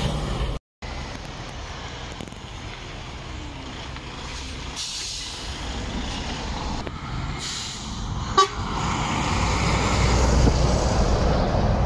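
Lorry engines running as trucks move past, the low rumble building toward the end, with one brief horn toot about two-thirds of the way through. The sound drops out for a moment near the start.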